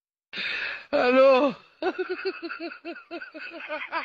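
A person gives a wavering, falling cry, then breaks into laughter: a rapid run of short, falling 'ha's, about four a second.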